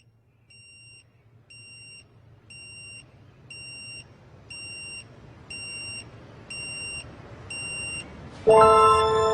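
Electronic beeping: a short, high beep about once a second, each beep louder than the last. About eight seconds in, music with bell-like chiming tones starts.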